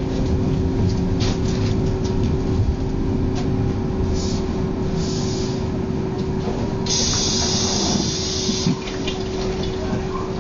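Running tram heard from inside the cabin: a steady low rumble with a constant electric hum and small rattles. About seven seconds in, a loud hiss lasts nearly two seconds and then cuts off.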